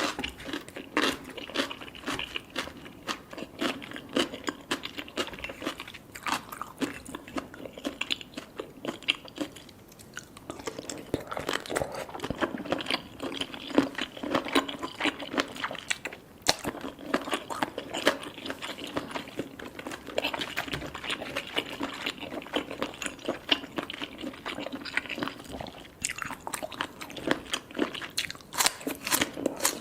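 Close-up mouth sounds of eating baby cuttlefish: soft, crunchy bites and chewing, a steady run of quick clicks and smacks, easing off briefly about a third of the way in.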